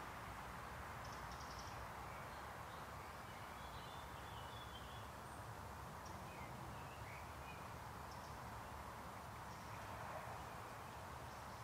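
Quiet countryside ambience: a steady soft hiss with faint, scattered birdsong, a few short chirps every second or two.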